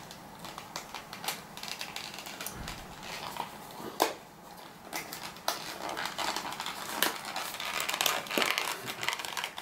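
Hands forcing open a small cardboard figurine box: the packaging crinkles and rustles, with scattered sharp clicks and snaps as the box is torn. A louder snap comes about four seconds in.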